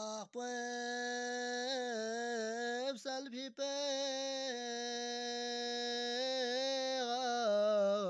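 A single unaccompanied voice singing a devotional naat in long, drawn-out held notes with wavering ornaments, pausing briefly twice for breath.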